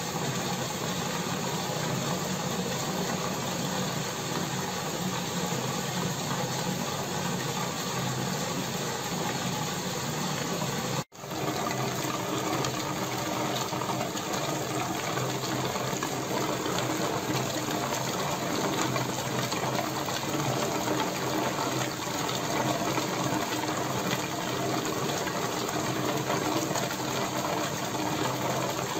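Water-filled plexiglass bubble wall running: air from an air pump fed through an air stone rises and bursts in a steady bubbling hiss, over a low pump hum. The sound drops out for an instant about eleven seconds in.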